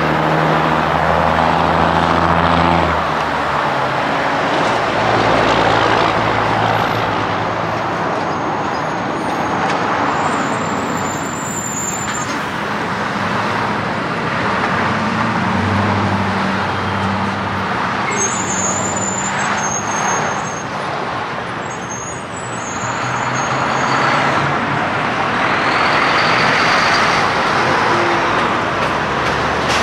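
Road traffic with diesel semi-trucks driving past: engines running and tyre noise on the road, with brief high squeals about a third of the way in and again about two-thirds in.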